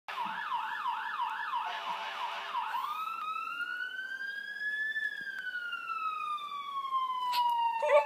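Police siren in yelp mode, rapid up-and-down sweeps about three a second, switching at under three seconds in to a slow wail that rises for about two seconds and then falls for about three. A dog starts to howl at the very end.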